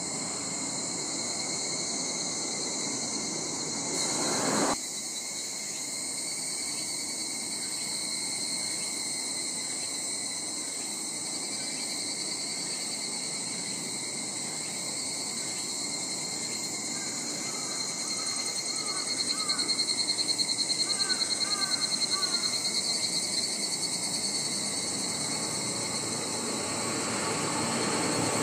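Insects chirping in a steady, high-pitched chorus, with a pulsing trill in the middle. A brief swell of noise about four seconds in stops abruptly. Near the end, the rising rush of an approaching Shinkansen train grows louder.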